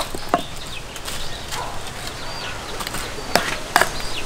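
A few scattered sharp knocks of a wooden club breaking lumps of charcoal, to be loaded into a clay charcoal stove.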